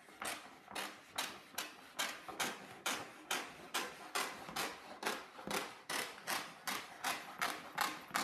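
Scissors snipping through the backing sheet of a pinball playfield overlay, a steady run of sharp cuts about two to three a second.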